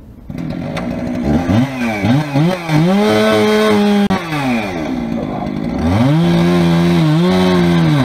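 Two-stroke chainsaw revved up to full throttle and held high, dropping back briefly about four seconds in, then revved up and held again until the sound cuts off.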